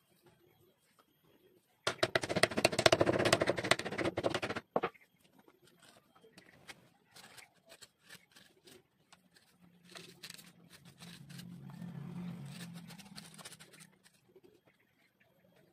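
A knife cutting and scraping cowhide leather on a wooden block. A loud rasping run of quick strokes lasts about three seconds, then come scattered small clicks, then a softer steady scrape for about four seconds near the end.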